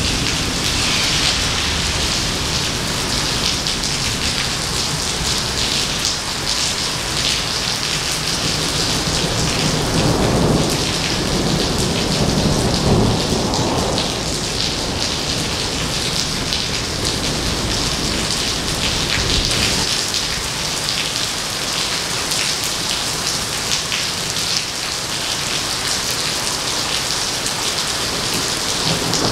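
Heavy rain pouring steadily onto wet pavement during a thunderstorm, with thunder rumbling low about ten to fourteen seconds in.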